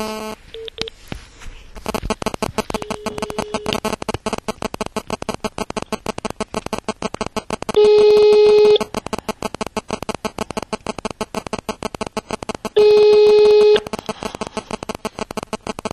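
Telephone ringing tone heard down the line: a steady tone, ringing twice for about a second each, about five seconds apart, the called phone ringing with no answer yet. A rapid buzzing crackle of line interference runs underneath.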